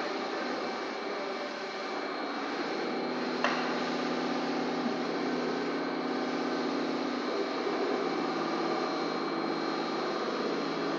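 Steady hum of running machinery, with a single sharp click about three and a half seconds in.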